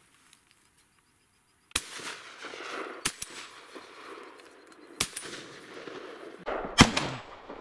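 A run of shotgun shots at ducks, starting about two seconds in: four sharp reports a second or two apart, each trailing off into a brief echo, with the last one the loudest.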